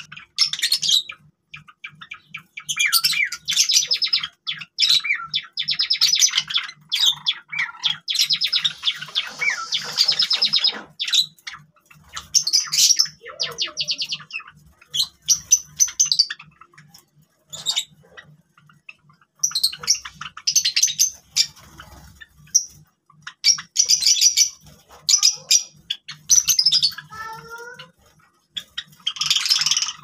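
A flock of Java sparrows chirping and chattering, with spells of rapid clicking song notes and sharp calls broken by short pauses.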